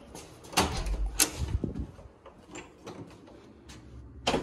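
Motel room door being opened and shut: handle and latch clicks and knocks. There are two sharp knocks within the first second or so, a few softer ticks, and another sharp knock near the end.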